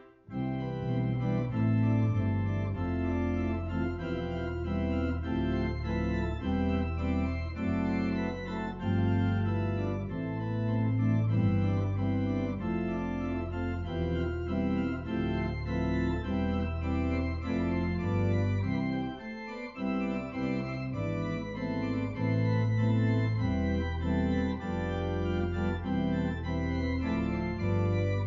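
Church organ playing sustained chords on the manuals over a bass line played on the pedals. The sound briefly drops away about two-thirds of the way through before the playing resumes.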